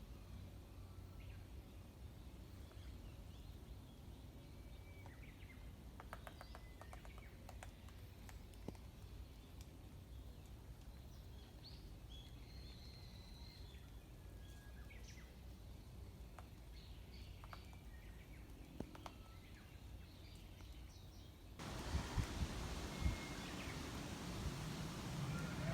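Faint bird calls in woodland, with a quick run of taps about six seconds in and a few single taps later, a Japanese pygmy woodpecker pecking at a tree. Near the end the sound turns to louder wind noise with low thumps.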